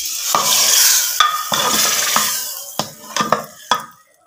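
Hot butter-and-cumin tempering sizzling as it is poured into pav bhaji in a pressure cooker, the hiss dying away over the first couple of seconds. A metal ladle stirs it in, clanking against the pot about seven times at uneven intervals.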